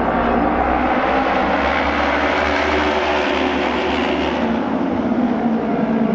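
Japanese auto race motorcycles, 600 cc twin-cylinder racing bikes, running at speed on the oval track. The engine noise swells to its loudest about the middle and then eases off.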